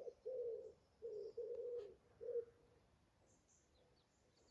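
Common wood pigeon cooing: a run of low coos, the last one short, that stops about two and a half seconds in. Faint small-bird chirps can be heard above it.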